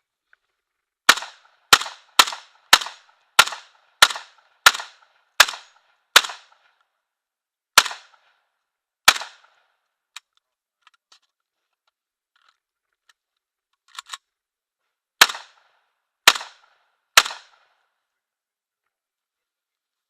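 Saiga-12 semi-automatic 12-gauge shotgun fired in quick succession: eleven shots, at first about two-thirds of a second apart, then spacing out. A pause of several seconds follows, with faint clicks and a double click that fit a magazine change. Then three more shots about a second apart.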